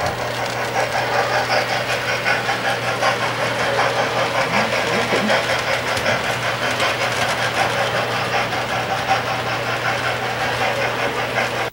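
Model train running on the layout: a steady motor hum with a fast, continuous clicking of wheels over the track.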